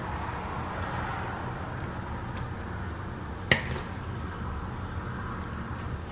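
A single sharp knock of a spatula against a dish about three and a half seconds in, over a steady low hum, while macaroni and cheese is scooped from a glass mixing bowl into a baking pan.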